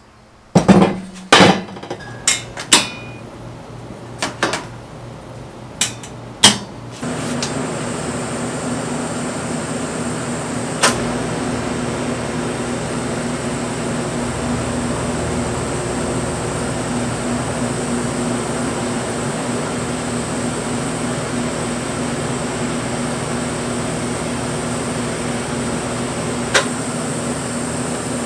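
Steel table-frame parts knocking sharply several times as they are handled and set in place on the bench. About seven seconds in, a TIG welding arc strikes and buzzes steadily on the steel, with a hum from the welder.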